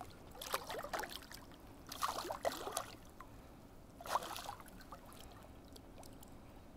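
A hooked brown trout thrashing and splashing at the water's surface while being played to the net, in three short bursts about two seconds apart.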